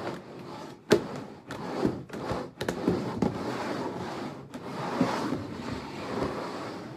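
Two upturned plastic bowls being slid and swapped around on a tabletop: a continuous scraping with repeated knocks and clicks, the sharpest about a second in.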